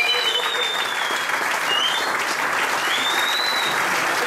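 A room full of people applauding steadily.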